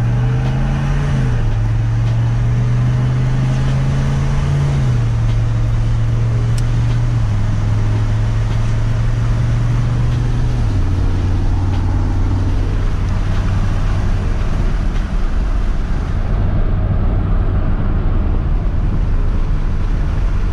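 A 6.5-litre turbo diesel V8 in a 1994 GMC pickup, running a new performance E-Prom tune, pulls hard under acceleration, heard from inside the cab. Its drone drops in pitch several times as the truck shifts up through the gears, over steady road noise.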